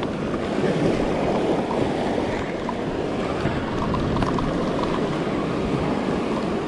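Ocean surf washing onto the beach, mixed with wind: a steady rushing noise.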